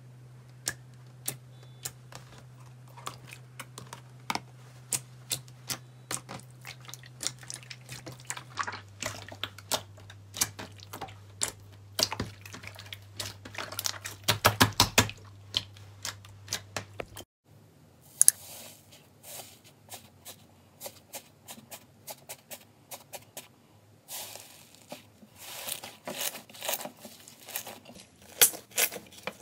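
Slime being pressed and squished by hand, giving off many quick sticky pops and clicks that come thickest a little past the middle. About two-thirds of the way in it changes to thicker fluffy slime being stretched and kneaded, which crackles and tears.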